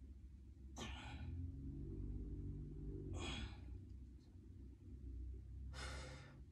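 A person breathing hard during a floor workout: three heavy, sighing breaths, about two and a half seconds apart.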